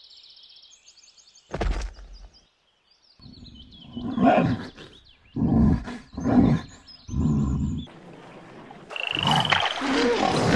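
Bear roar sound effect: four loud, low growling roars in a row, after light birdsong and a single thump in the first two seconds. Near the end comes a noisy whoosh with a brief high whistle.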